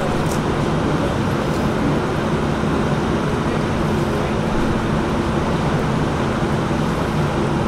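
Steady low rumble of vehicle engines and road traffic, with a constant low hum under it.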